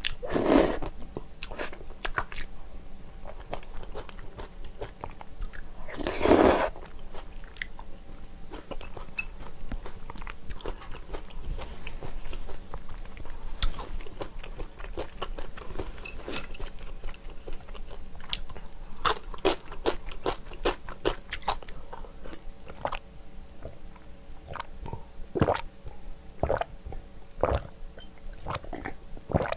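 Close-miked eating of spicy tteokbokki with rice cakes, flat glass noodles and Vienna sausages: a steady run of wet chewing clicks and mouth smacks, with two louder bursts about half a second and six seconds in.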